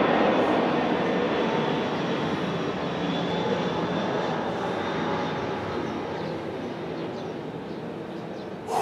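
Engine noise of an aircraft flying over, a steady rumble that slowly fades away.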